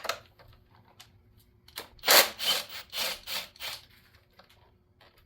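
Wiring harness connectors being worked loose by hand: a sharp click at the start, then a quick run of about six rubbing, scraping strokes over two seconds.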